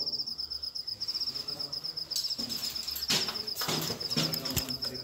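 An insect, cricket-like, trilling steadily in a high, rapidly pulsing tone. Several short knocks and scuffs come in from about two seconds in.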